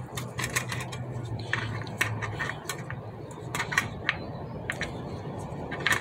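Small metal clicks and clinks in a few short clusters: a round multi-size spoke wrench knocking against the spoke and its nipple as its slots are tried for fit. A low steady hum lies underneath.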